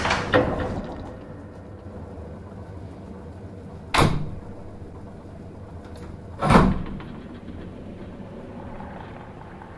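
Elevator sound: the sliding doors shutting at the start, then a low steady hum broken by two heavy clunks, a sharp one about four seconds in and a deeper one about six and a half seconds in.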